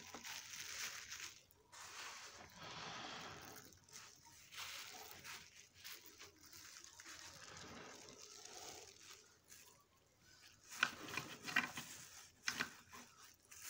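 Wet crackling and rustling as sauce-covered snow crab legs are handled in plastic-gloved hands, with a few sharp cracks of shell near the end.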